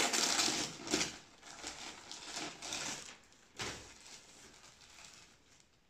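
Gift wrapping paper and plastic packaging rustling and crinkling as a present is unwrapped by hand. It is loudest in the first second and fades, with another short crackle about three and a half seconds in.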